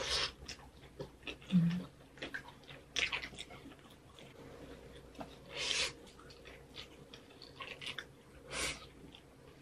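Close-up eating sounds: chewing and biting pizza, then noodles eaten from a bowl near the end, with several short noisy bites or slurps and a brief low hum about one and a half seconds in.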